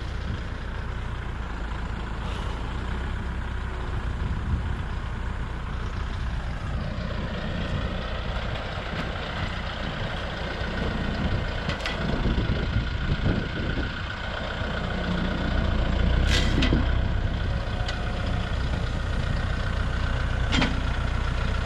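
Tractor engine running steadily while it works a grapple, with a few sharp knocks, the loudest about sixteen seconds in.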